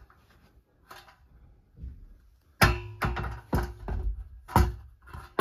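Aluminum closet-door overhead track knocking and clattering against the closet header as it is pushed up into place for a test fit, with a ringing metallic note. It is quiet at first; the knocks start about halfway in and come about twice a second.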